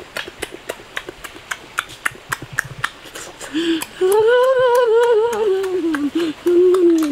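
Close-up eating sounds of a man sucking cooked snails from their shells: sharp wet mouth clicks and smacks, several a second. From about halfway, a loud hummed 'mmm' rises and then falls in pitch, breaking off briefly twice near the end.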